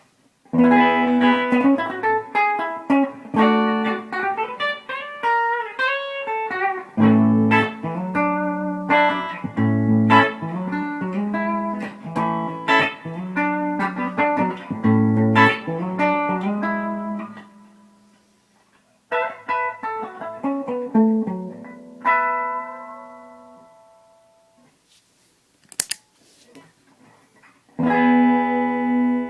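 Electric guitar, a Gibson ES-359, played through a Bearfoot Pale Green compressor pedal into a small amp with a 10-inch speaker: riffs of picked single notes and chords. About two-thirds of the way in a chord is left ringing and fades out, then the playing picks up again near the end.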